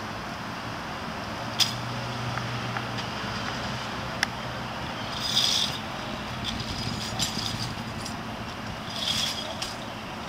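Street background with a low vehicle hum. A sharp click comes about one and a half seconds in and another about four seconds in, and two short hissing rustles fall around the middle and near the end.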